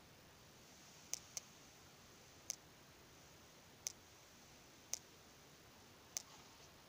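Six faint, sharp clicks at uneven intervals over quiet room hiss.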